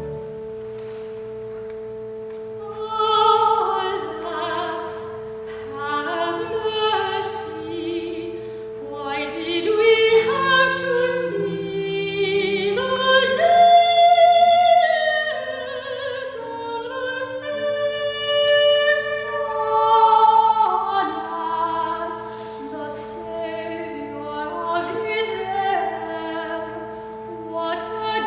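Voices singing a slow melody over organ accompaniment. The organ holds a chord alone for about the first three seconds, then the voices come in, with the organ's lower notes stepping upward partway through.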